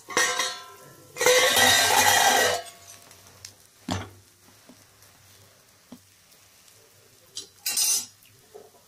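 A metal-rimmed pan lid taken off a kadai: a clank with a brief metallic ring, then a clatter of metal on metal lasting about a second and a half. A click follows, and there is another short clatter near the end.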